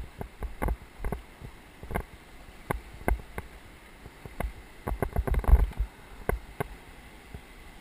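Irregular splashing and knocking of a kayak paddle and water against the boat on a river, with a busier, louder flurry of splashes about five seconds in.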